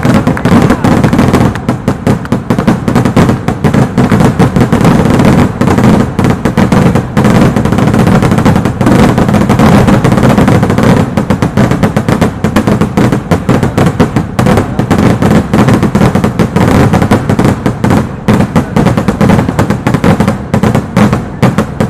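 Fireworks: a dense, very loud barrage of festival rockets and firecrackers going off, bangs and cracks so rapid that they run together without a break.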